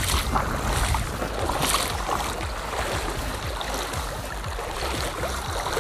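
Shallow sea water splashing and swishing around wader-clad legs while wading, with a few louder splashes in the first two seconds. A steady low wind rumble on the microphone runs under it.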